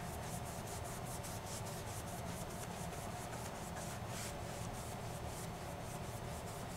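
Round wax brush scrubbing furniture wax onto a chalk-painted wooden panel: a quick run of soft brushing strokes, several a second, bristles rubbing on the flat painted wood.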